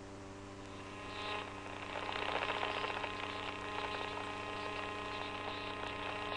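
Steady electrical hum with a crackle of static that builds about a second in and then holds on steadily.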